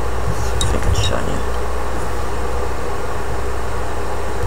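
Steady mechanical hum filling the background, with a few light clicks about a second in.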